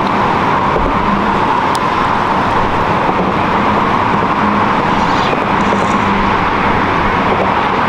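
Steady road-traffic noise, an even wash of tyre and engine sound.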